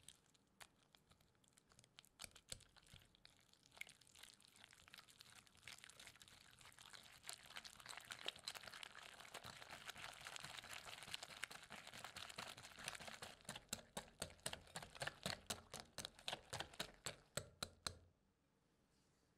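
Wire balloon whisk beating softened butter and egg in a glass mixing bowl: a faint, fast run of clicks and scrapes as the wires strike the glass, settling into a steadier beat of about three ticks a second before stopping shortly before the end.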